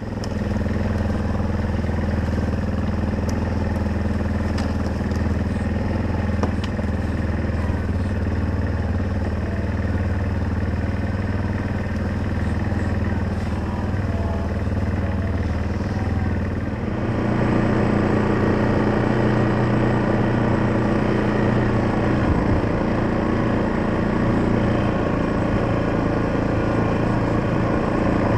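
ATV engine running steadily as the four-wheeler is ridden along a woodland trail. The engine note shifts about two-thirds of the way through.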